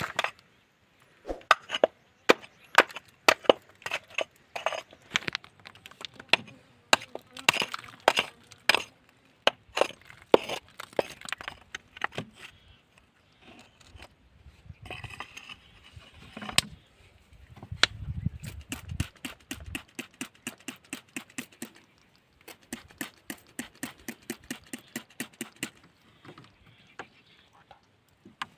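A hand tool striking rock again and again, giving sharp knocks and cracks. The strikes come irregularly at first, then settle into an even run of about three a second.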